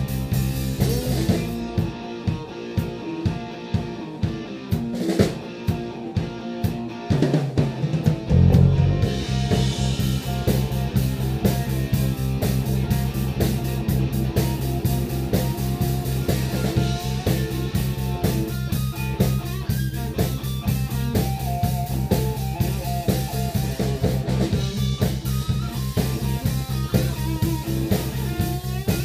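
Live blues-rock band with electric guitar, bass guitar and drum kit. A couple of seconds in, the bass drops out and the drums carry a stripped-down break with steady hits about twice a second. About eight seconds in, the full band comes back in.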